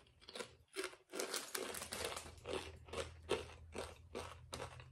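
A person chewing Croky potato chips, a steady run of crisp crunches about three a second.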